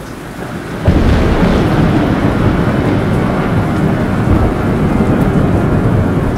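Thunder over rain: a sudden loud burst of thunder about a second in, then continuous rumbling over the steady hiss of rain.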